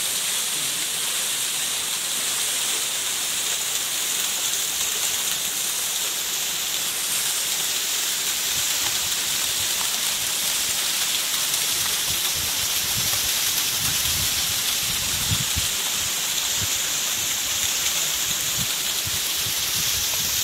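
Water pouring down a partly frozen waterfall: a steady rushing hiss. In the second half, low irregular thumps of wind or handling on the microphone.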